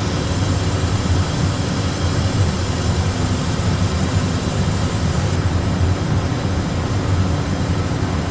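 Steady low rumble of cockpit noise on an Airbus A320 flight deck, with engine and airflow noise and nothing else standing out.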